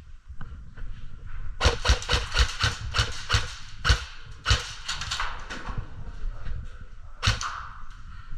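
Airsoft guns firing: a rapid, irregular string of sharp cracks from about a second and a half in to about five and a half seconds, then one more shot near the end.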